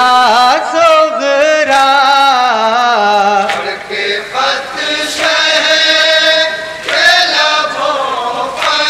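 A group of men chanting a nauha, an Urdu mourning lament, in unison with long held, wavering notes. Sharp beats land about every second and a half to two seconds, the mourners' rhythmic chest-beating (matam).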